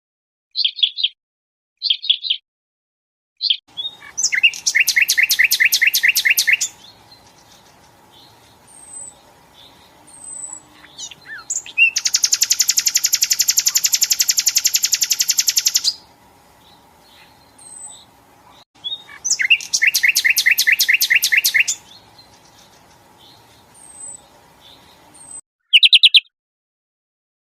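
Songbird song from a recording: short chirps, then fast repeated trills lasting a few seconds each, with one long dense trill of about four seconds in the middle, and short chirps again near the end.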